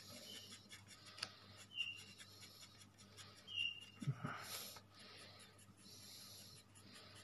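2B graphite pencil shading on paper: repeated short, scratchy back-and-forth hatching strokes. A brief low thump comes about four seconds in.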